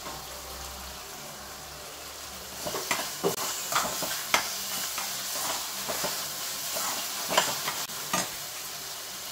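Onions and tomatoes sizzling in a frying pan on a gas stove. From about two and a half seconds in, a spatula scrapes and clatters irregularly against the pan as the mixture is stirred and tossed.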